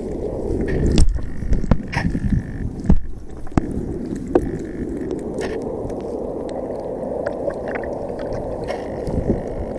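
Water gurgling and sloshing with a steady rushing noise, broken by a few sharp knocks in the first few seconds.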